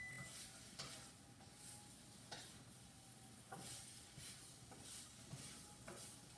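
Near silence: faint handling noise from fingers turning a silver coin, with a few soft clicks about a second apart.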